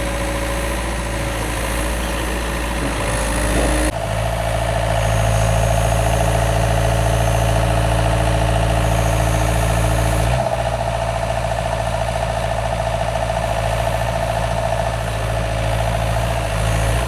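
Excavator's diesel engine running steadily. Its note changes suddenly about four seconds in and again about ten seconds in.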